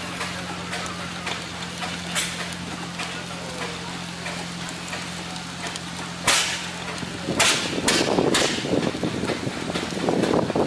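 Engine running at an even idle with a steady low drone, broken by a few sharp clicks about six and eight seconds in and by bursts of rushing noise in the second half.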